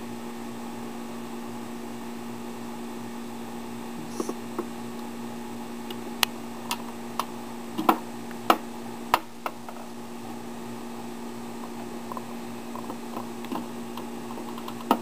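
Sharp clicks and knocks of plastic fittings and tubing being handled as an intake adapter and tubing are fitted to a small aquarium power head, most of them in the middle of the stretch, over a steady low electrical hum.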